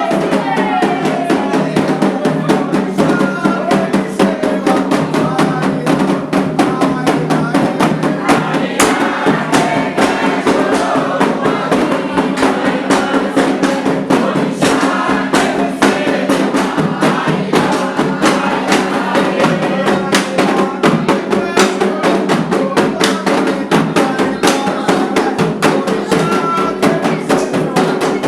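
Candomblé ritual music: hand drums beaten in a fast, steady rhythm under a group of voices singing.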